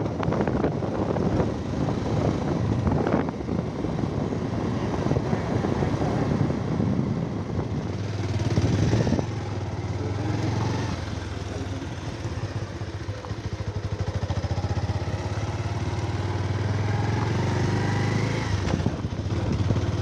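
Motorcycle engine running. For the first eight seconds it is mixed with wind and rough-road noise, then it settles to a steady low hum.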